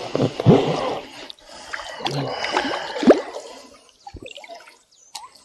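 Water splashing and gurgling as a hooked pike thrashes at the surface during the fight, in two uneven spells over the first three seconds or so, then dying down.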